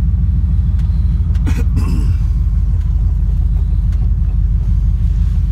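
Steady low engine and road rumble of a vehicle heard from inside the cab while driving, with a brief noise about a second and a half in.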